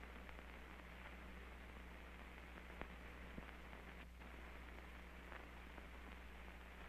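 Near silence: the steady hiss and low hum of an early sound-film soundtrack, with two faint clicks a little past the middle.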